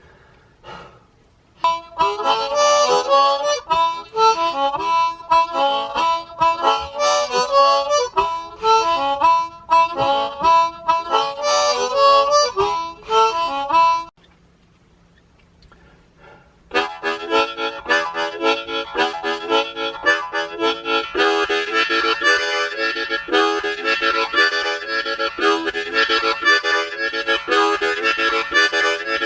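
Harmonica playing in two passages. The first is a quick, repeating figure of notes that stops about halfway through. After a pause of a few seconds, a busier run of rapid chords starts up and keeps going.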